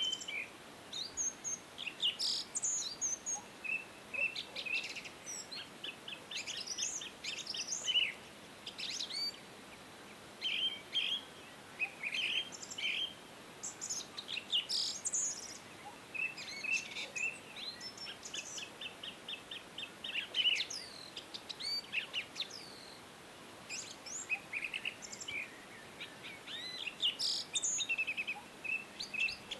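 Small birds chirping and singing, with quick runs of rapidly repeated notes, over a faint steady hiss.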